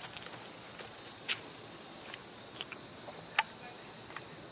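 Steady high-pitched drone of a chorus of insects, with a few light clicks and one sharper click a little past three seconds in.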